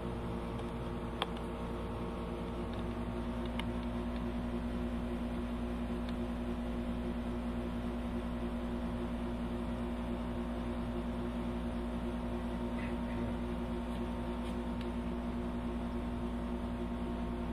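Steady hum of a room air conditioner running, with a click about a second in and another a few seconds later.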